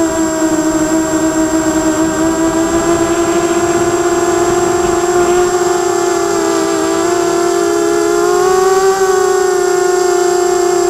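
Quadcopter's electric motors and propellers whining steadily in flight. Several close pitches drift apart and rejoin about six to nine seconds in as the throttle changes, and a steady high tone sits above them.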